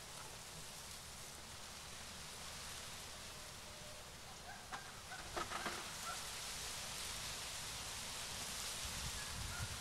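Outdoor garden ambience: a steady hiss of air and foliage, with a few short, faint bird chirps and a brief cluster of small clicks and chirps about five and a half seconds in.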